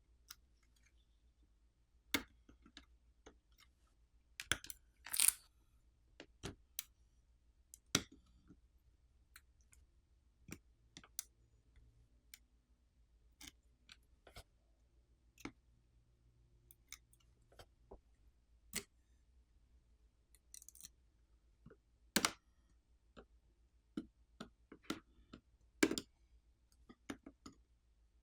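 Scattered small, sharp clicks and taps of tools working inside an opened tablet, as connector latches are lifted and flex and wire cables are unplugged from the board.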